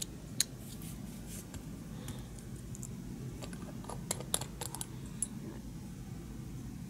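Light clicks and taps of small plastic parts being handled, then a cluster of sharp little clicks about four to five seconds in as the screw cap of a small glass glue bottle is twisted off. A steady low hum runs underneath.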